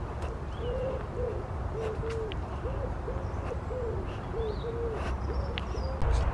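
A pigeon cooing in a steady, repeated run of low hollow notes, with a few thin chirps from small birds. A low rumble runs underneath, and there is a thump near the end.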